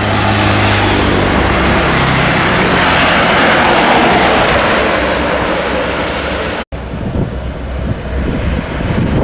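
Mitsubishi Canter light trucks driving past on a highway: a low diesel engine hum under tyre and road noise that swells as a truck passes close. About two-thirds of the way in the sound cuts off abruptly and comes back rougher and gustier, like wind buffeting the microphone.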